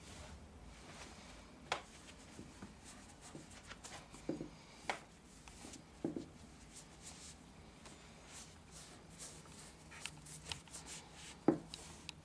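Bare feet stepping and pressing into a layer of white powder on a hard surface: irregular light thumps and soft scuffs, the loudest thump near the end.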